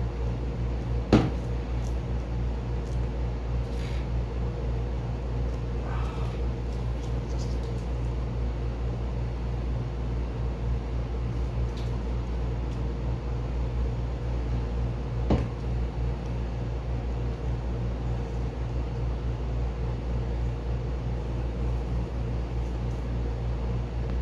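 Steady low machine hum in a small workshop, with a few faint crackles as masking tape is peeled off a painted 3D-printed helmet. Two sharp knocks stand out, a loud one about a second in and a lighter one near the middle.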